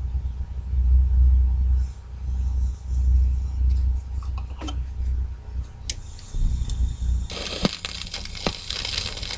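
Low handling rumble and a few light clicks as a 45 rpm single is laid on a turntable. About seven seconds in, the stylus touches down in the lead-in groove and steady vinyl surface hiss starts, with crackles and a couple of sharp pops.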